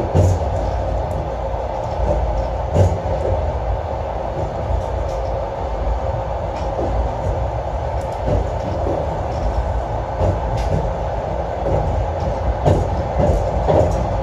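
Trans-Siberian Railway passenger train running at speed, heard from inside the carriage: a steady rumble with a faint hum under it and a sharp knock every second or two at uneven spacing.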